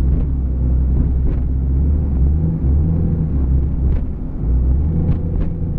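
Lifted Jeep's engine and drivetrain droning steadily while driving, heard from inside the cab. The pitch shifts a couple of times with the throttle, and a few faint clicks sound over it.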